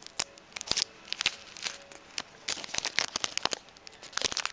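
The plastic wrapper of an Alfort chocolate biscuit crinkling and tearing open by hand, with irregular sharp crackles.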